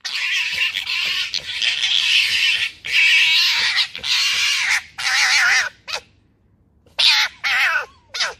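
Two red foxes gekkering at each other in a squabble over food: harsh, high-pitched, rasping chatter with a wavering pitch. It is nearly continuous at first, then breaks into a series of shorter calls, with a brief quiet gap past the middle.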